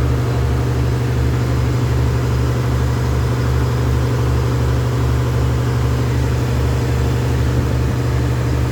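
A machine running steadily, giving a loud, even hum with a regular low throb, like an engine idling.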